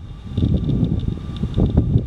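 Gusting wind buffeting the microphone over the low rumble of a Boeing 737 MAX 8's jet engines on its takeoff roll, rising in uneven surges, with a faint steady high whine.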